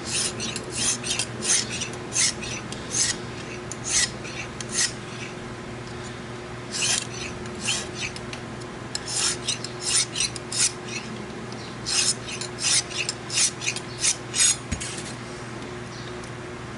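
Synthetic sharpening stone of a Lansky guided knife sharpener stroked along a steel knife edge: a run of short, high-pitched scraping strokes, about two a second, pausing twice.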